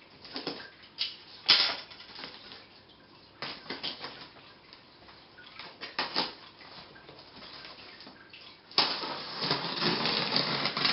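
Packing tape on a cardboard shipping box being peeled off in several short pulls. From about nine seconds in comes a longer continuous scraping and tearing as the tape along the lid seam is slit open.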